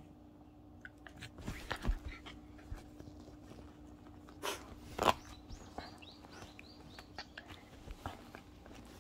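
A small white curly-coated dog moving right up against the phone. Its fur and body brush and knock the microphone, with the loudest bumps about two and five seconds in. A run of short high squeaks follows in the middle.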